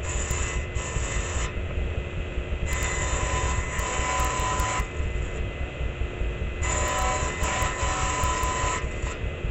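Table saw running with a steady motor hum while its blade rips a wooden board fed along the fence. The cutting noise comes in two short bursts near the start, then in two longer stretches of about two seconds each.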